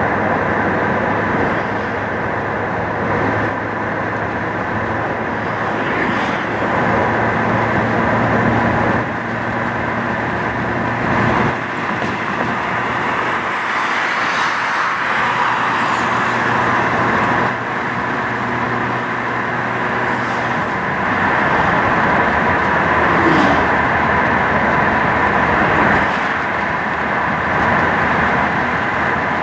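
Steady road noise of a car driving at speed on a dual carriageway, heard from inside: tyre roar and engine hum, with other cars passing alongside.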